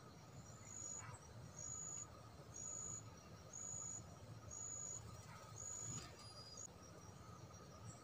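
Faint insect calling: a high, even-pitched buzzing trill about half a second long, repeated about once a second six times, over a steady faint high drone.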